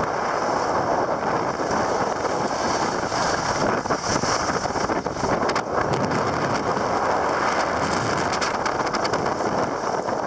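Wind rushing over the microphone of a camera skiing downhill at speed, with the hiss and scrape of skis carving on groomed snow and scattered crackles a few seconds in.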